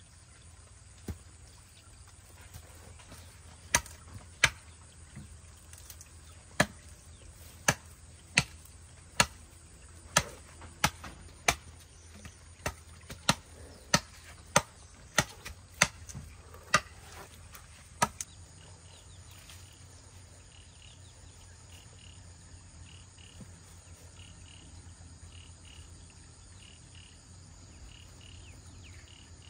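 A series of about eighteen sharp knocks, irregularly spaced and roughly one every half second to a second, stopping about 18 seconds in. After them, faint high chirps repeat in a pulsing pattern, like insects calling.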